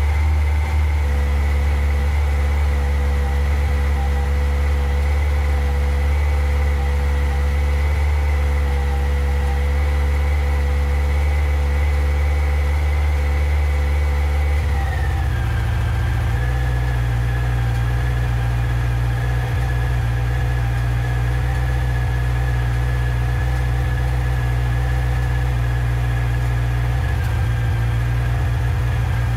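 Yamaha XJR1300 air-cooled inline-four idling steadily, being run to use up the fuel left in its carburettors. About halfway through, the engine speed drops to a slower, steady idle.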